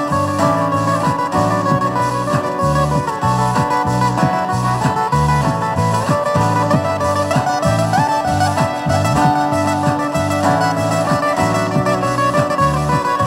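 Amplified acoustic guitar played fingerstyle: an instrumental melody with slides over a steady, pulsing bass line.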